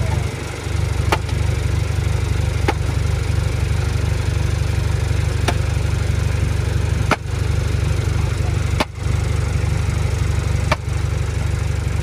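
Diesel engine of a Komatsu D20A crawler bulldozer running steadily, a low rumble with a few sharp clanks every second or two.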